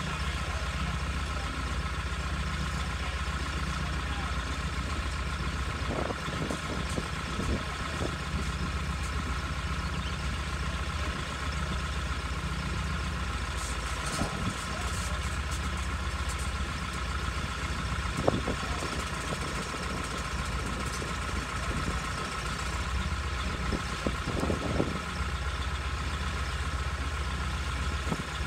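Truck crane's engine idling steadily while holding a load, with a constant high whine over the low hum. A few short knocks or clanks are heard now and then.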